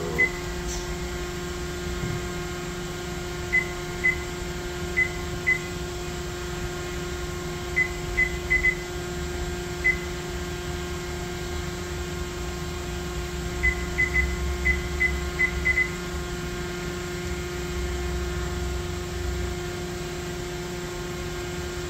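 Short high beeps in three scattered clusters, from keys being pressed on the CNC control, over the steady hum of the DMG Mori NTX 1000 machine running at idle.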